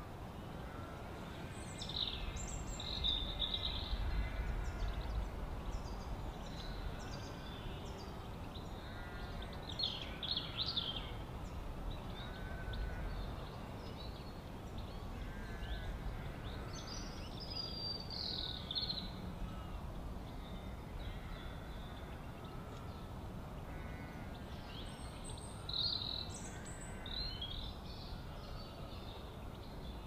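Wild birds chirping and calling over a steady outdoor background hiss. Four bursts of louder, high, sweeping calls come several seconds apart, with fainter short calls between them.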